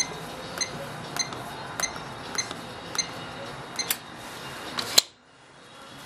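Sargent & Greenleaf Titan electronic safe lock keypad beeping with each key press as the combination is entered: six short beeps evenly spaced about every half second, then a few more in quicker succession, the last and loudest about five seconds in.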